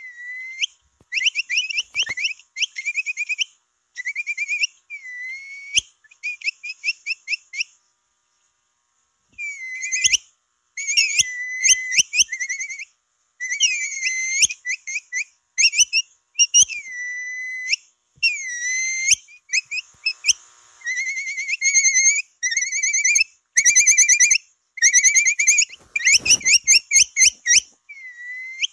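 Capybara attracting call: high-pitched whistled chirps and rapid trills with short up-and-down pitch glides, in repeated phrases, broken by one short pause near a third of the way through.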